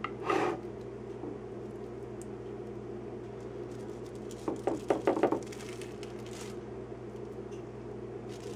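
Raw chicken tenders being handled: plastic wrap crinkling and the wet meat squelching and splashing softly as it is laid into a dish of coconut-milk marinade, in small clusters near the start and around five seconds in. A steady low hum runs underneath.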